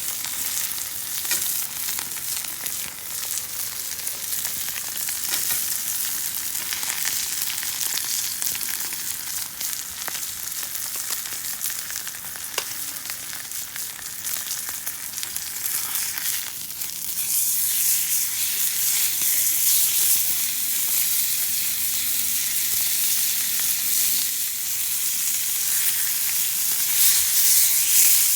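Steak sizzling in a hot pan, a steady sizzle peppered with sharp pops of spitting fat. The sizzle grows louder a little past halfway through.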